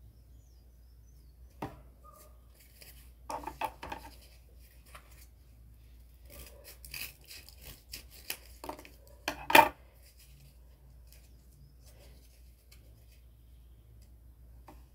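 Small pieces of cardboard handled and pressed against a cardboard model: scattered taps, scrapes and rustles, in short clusters. The loudest is a sharp knock a little past the middle.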